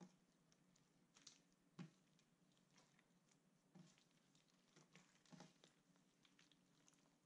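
Faint wet squishes and crackling pops of clear slime mixed with crushed eyeshadow being kneaded and squeezed by hand. The pops come irregularly, the loudest a little under two seconds in.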